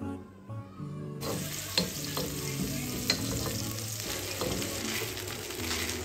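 Rice grains frying in ghee in a nonstick pan, sizzling as a wooden spoon stirs them, with a couple of sharp clicks of the spoon against the pan. The sizzling starts about a second in, with soft background music under it.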